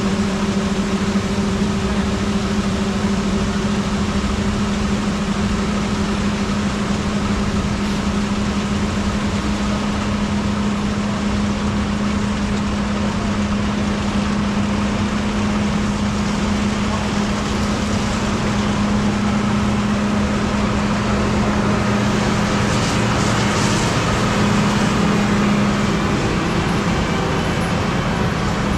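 Heavy diesel harvest machinery running steadily: a constant engine drone with a strong, even hum.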